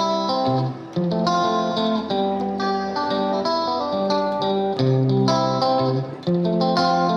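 Background music: an instrumental melody of plucked notes.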